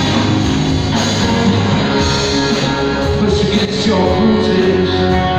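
Live rock band playing loudly: electric guitars and drums.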